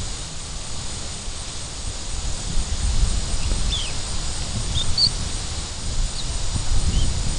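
Wind buffeting the microphone in uneven gusts, with a few short bird chirps through the middle.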